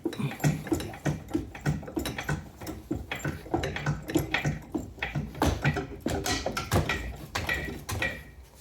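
Hydraulic floor jack being pumped to raise the car, its handle strokes giving a regular creak and clank about two to three times a second.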